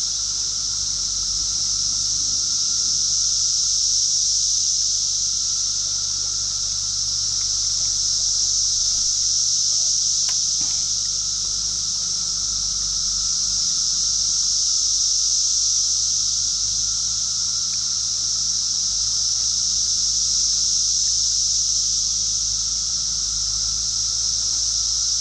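Steady high-pitched chorus of summer insects, swelling and fading slowly every few seconds.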